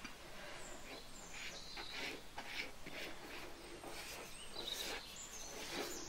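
Pastry brush dabbing and sweeping melted butter over the top of a baked sponge cake: a run of soft, wet brushing strokes.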